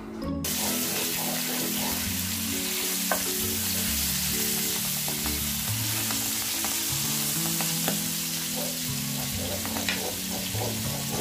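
Hilsa fish steaks frying in hot oil in a nonstick pan: a steady sizzle that starts abruptly a moment in, with a few light knocks of a wooden spoon as the pieces are moved.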